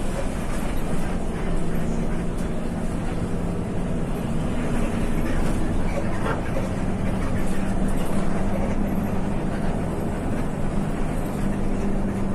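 Mekar Prima intercity bus heard from inside its cabin while cruising: a steady engine hum over continuous road and tyre noise. The hum shifts slightly in pitch a few seconds in and again near the end.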